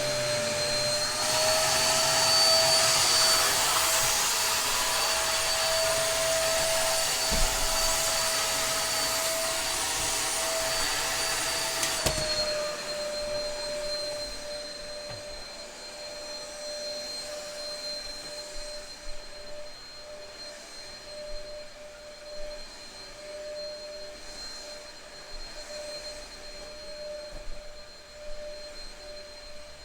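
Dyson DC03 upright vacuum cleaner running, a steady motor whine over rushing air. About a second in it climbs slightly in pitch and gets louder, then about 12 s in it drops back and quietens, with changes in suction load.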